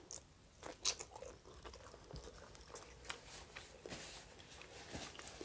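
A person biting and chewing a slice of pizza close to the microphone. The sound is faint, with irregular small crunches and mouth clicks.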